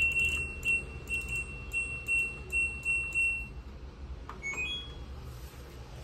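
LG front-load washing machine's control panel beeping with each click of the program dial as it is turned toward the Quick 30 wash, about three beeps a second. A short rising three-note beep follows at about four and a half seconds.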